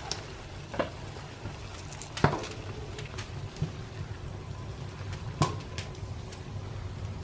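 Water boiling in a steel pot on a wood stove, a steady bubbling hiss. A few sharp knocks cut through it, the loudest about two seconds in and another near five and a half seconds with a short metallic ring.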